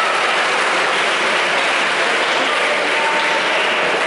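Spectators applauding steadily after a point.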